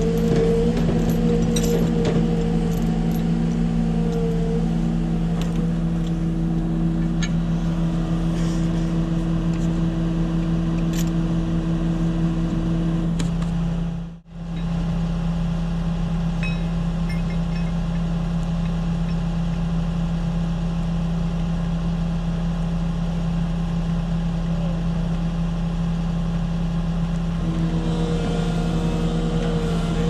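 Heavy truck's diesel engine running at a steady speed, with a second steady tone that stops partway through and comes back near the end. The sound cuts out for a moment about halfway through.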